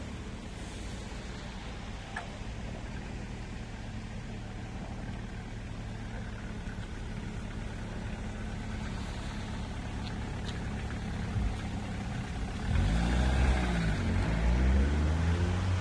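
BMW car engine idling steadily, then revved in a couple of blips near the end, the pitch rising and falling as it gets louder.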